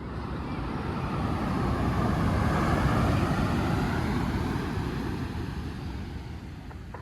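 A vehicle passing by: a broad engine-and-rush noise that grows louder, peaks about three seconds in, then fades away.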